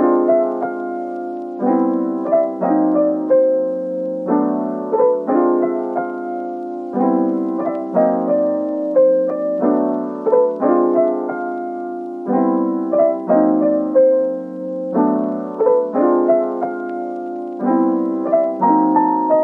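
Background music: a soft piano-like keyboard playing a slow, repeating chord pattern, with no drums.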